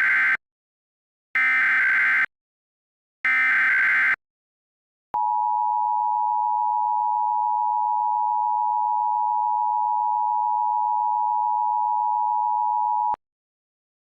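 Emergency Alert System tones for a required monthly test. Three short bursts of screechy digital header data, about two seconds apart, are followed by the EAS two-tone attention signal, a steady dual tone held for about eight seconds that cuts off abruptly.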